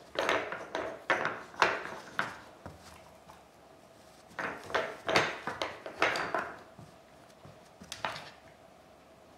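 Wooden knobs of a Nina Ottosson Dog Turbo puzzle toy sliding and knocking in their wooden channels as a dog pushes them around, in two bursts of clicks and clunks and a shorter one near the end.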